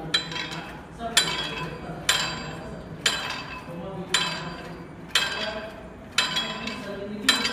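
Gym cable machine clanking with each repetition: a sharp metallic clank about once a second, each ringing briefly.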